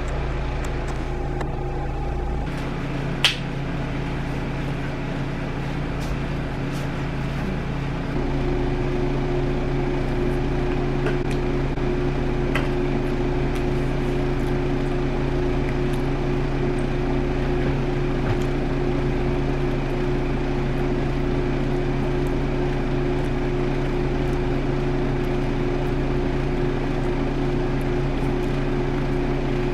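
Steady low machine hum, stepping up slightly in level about eight seconds in, with a single sharp click about three seconds in.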